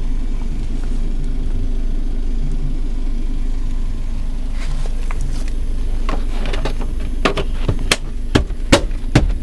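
A vehicle engine running with a steady low hum. From about six seconds in comes a string of sharp knocks and clicks that grow louder and closer together near the end.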